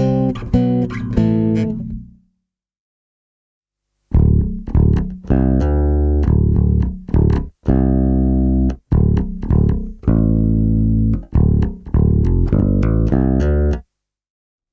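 Warwick Corvette six-string bass with bubinga body and Seymour Duncan Basslines humbuckers, recorded direct, playing notes. A phrase ends about two seconds in; after a short silence a new riff of short and held notes starts on the bridge pickup alone, active preamp, EQ flat, and stops shortly before the end.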